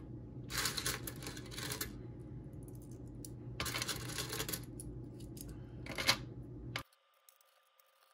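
Pennies clinking as they are picked up and stacked into the slots of a plastic coin counting tray, in three bursts of clicks about half a second, three and a half seconds and six seconds in. The sound cuts off suddenly near the end.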